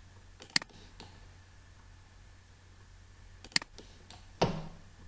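Computer mouse clicks, two sharp single clicks about three seconds apart, followed near the end by a duller, slightly longer knock. The clicks place copied points in the CAD drawing. A faint steady low hum runs underneath.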